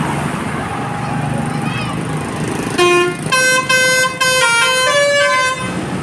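Bus 'telolet' multi-tone horn (Basuri type) playing a quick tune of stepped notes, starting about halfway through and lasting about three seconds. The bus's engine and road traffic run underneath.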